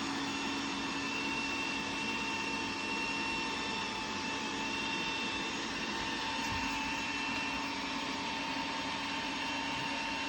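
Robot vacuum cleaner running: a steady whir with a constant high-pitched whine.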